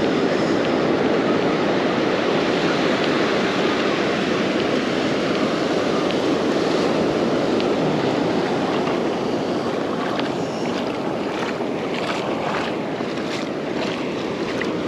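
Surf washing up the beach, mixed with wind on the microphone. In the last few seconds a run of short clicks comes through, about two a second.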